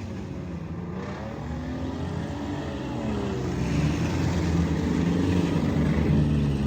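Several demolition derby cars' V8 engines revving and accelerating together, the pitches rising and falling over one another and the overall sound growing louder.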